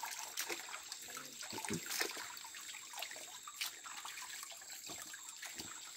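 Water splashing and sloshing in many small irregular strokes as a bundle of fish-poison root is rubbed and squeezed by hand in a shallow stream pool, releasing its poison to stun the fish.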